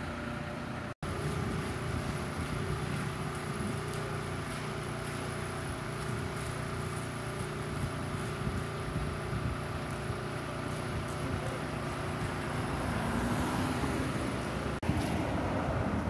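Diesel engine of a parked road-marking truck idling steadily, with wind on the microphone. Near the end a car drives past, its engine note rising.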